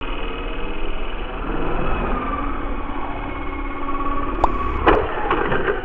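XK K110 mini RC helicopter's electric motors and rotors whining steadily in several tones, the pitch shifting a little as it flies. Near the end comes a hard knock, the helicopter hitting something, with a few smaller clatters after it.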